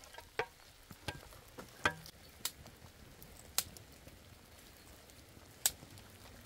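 Water dripping: single drops striking a surface at irregular intervals, about one a second, some with a short ringing plink, over a faint steady hiss.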